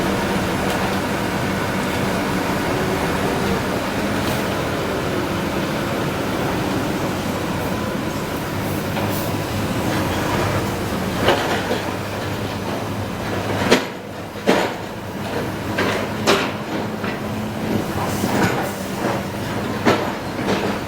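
Sany SR150C rotary drilling rig's diesel engine running steadily, with sharp metallic clanks and knocks from about halfway through.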